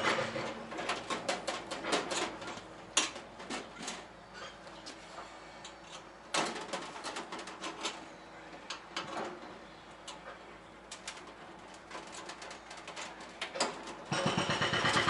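Irregular clicks and clanks of hand work with metal parts and tools. About a second before the end, a small motor starts suddenly and runs steadily with a fast buzzing pulse.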